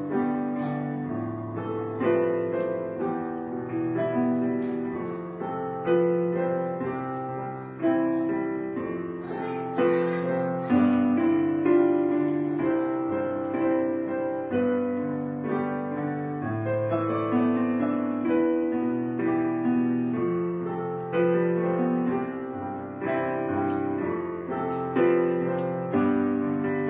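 Slow background piano music, chords struck every second or two and left to ring out.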